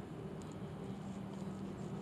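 Faint steady low hum under a light hiss, with a few soft ticks.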